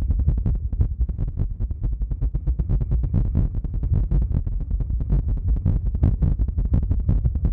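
ASMR "powerful helicopter" trigger: rapid, heavy strokes right on the microphone, a fast even run of deep thumps, many a second, with no let-up.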